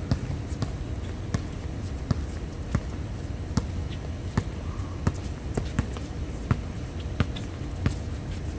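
Basketball being dribbled on an outdoor hard court: a steady run of sharp bounces, about three every two seconds, over a low background rumble.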